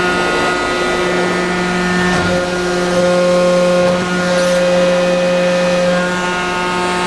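Lang Tube Tec #100 CNC tube bender running: a steady machine hum made of several held tones. Its tone shifts slightly a few times as the machine steps through its cycle, with a few faint clicks.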